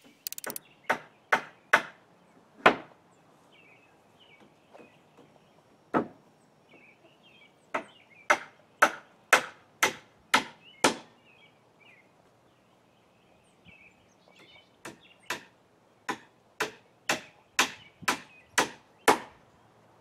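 Hammer driving nails into the wooden framing of a small barn. The blows come in runs of quick strikes, about two a second, with a few single blows in between.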